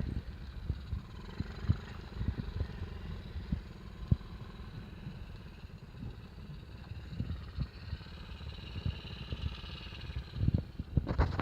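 Wind buffeting the microphone: a low rumble with many irregular thumps.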